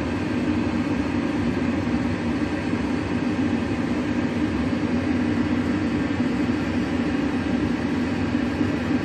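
Steady cockpit noise of a Boeing 767 flight simulator in flight: an even hum with a strong low drone, the simulated sound of engines and airflow.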